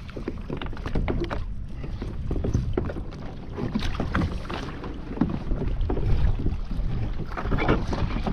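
Water splashing and lapping against a fishing kayak at sea, with wind rumbling on the microphone and scattered knocks and handling noises.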